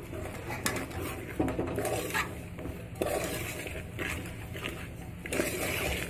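A spoon scraping and knocking against a metal pot in irregular strokes as rice flour is stirred into a thick sugar syrup.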